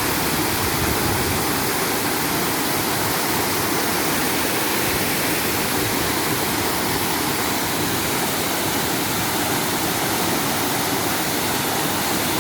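Waterfall cascading, a steady loud rush of falling water.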